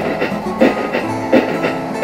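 Background music with a steady drum beat, about three hits every two seconds, over held tones.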